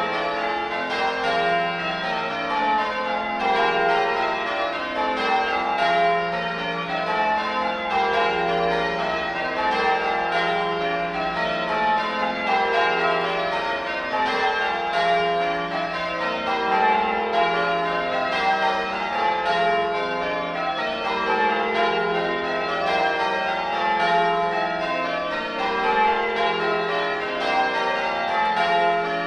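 Change ringing on a 1954 Gillett and Johnston ring of eight church bells, the bells struck one after another in a steady, even rhythm with no break.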